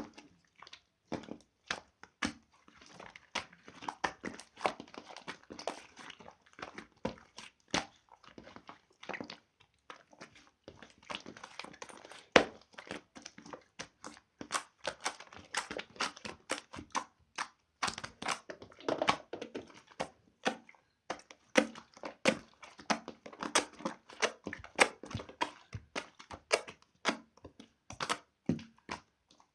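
Slime being squeezed and pressed by hand: a dense run of irregular clicks and pops, several a second, with a louder snap about twelve seconds in.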